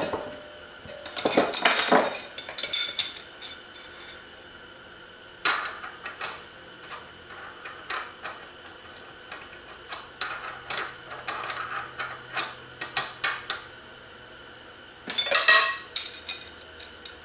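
Metal engine parts clinking and clattering in short clusters as a clutch sprocket and clutch parts are handled and fitted in the aluminium crankcase of a 1955 Zündapp scooter engine. The loudest clusters come about a second in and near the end.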